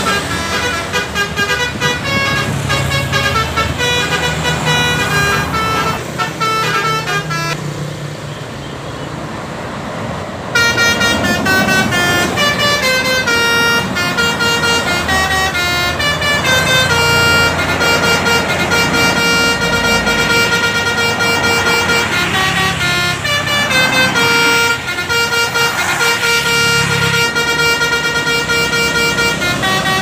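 Telolet bus horns: multi-tone air horns playing quick, tune-like runs of notes, over the engines of passing buses. About eight seconds in, the horns stop for a couple of seconds, leaving only engine and road noise. They then break in again suddenly and keep playing.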